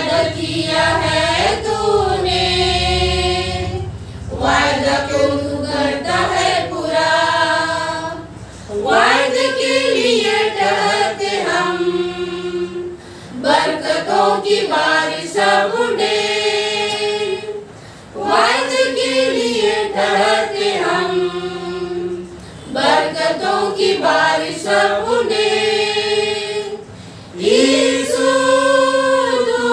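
A small group of women singing a hymn together, unaccompanied, in phrases of about four to five seconds with short breaks between them.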